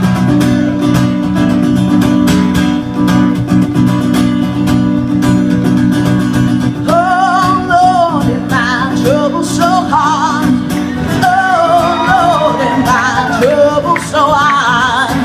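Acoustic guitar strumming a steady song intro. About seven seconds in, a wordless vocal line with a strong vibrato joins over the chords.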